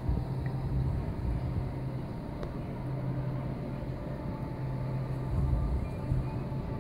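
Steady low electrical hum over a soft rumble and hiss, as from the aquarium's filter or pump running.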